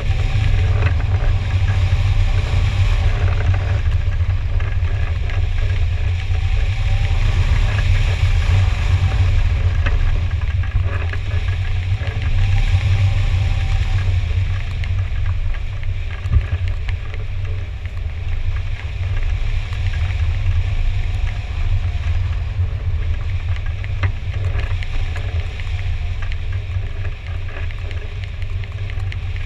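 Airstream rushing over a wing-mounted action camera on a hang glider in flight: a steady, heavy low wind rumble with a hiss above it that rises and falls a little in the gusty air.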